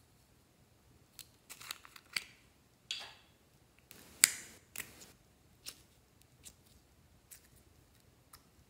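A small plastic slime tub handled and opened: a run of plastic clicks and short scrapes as the lid comes off, then sticky noises as the slime is pulled out. The loudest is a sharp snap just after four seconds.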